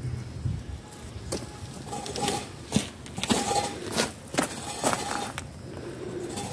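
Bark being stripped from a log by hand: a run of irregular, short scraping and cracking strokes, about two a second.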